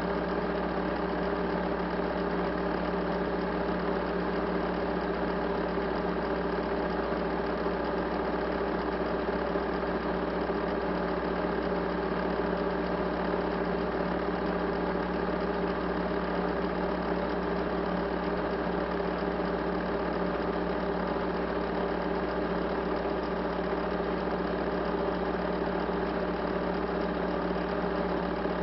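A steady mechanical hum at one unchanging pitch, with a low rumble beneath it and no change in speed or loudness.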